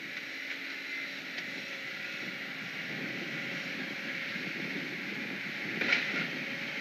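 Steady outdoor hiss of wind on an outdoor nest-camera microphone, with one short sharp sound about six seconds in.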